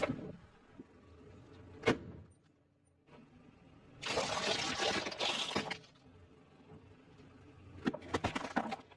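Objects crushed one after another under a car tyre: a soda bottle's hissing spray fades out, a single sharp crack comes about two seconds in, then a crackling crunch of about a second and a half, and a quick cluster of cracks near the end.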